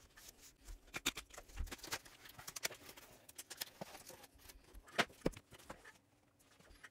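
Cardboard mailer box being opened by hand: faint rustling and scraping of cardboard with scattered small clicks, and two sharper snaps about five seconds in.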